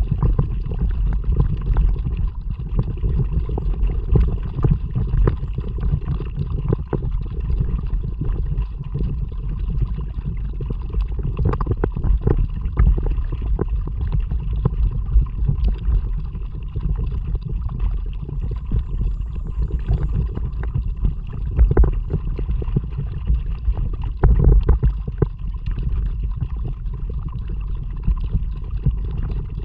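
Kayak being paddled: a steady low rumble with frequent short splashes and drips of water as the paddle works the water.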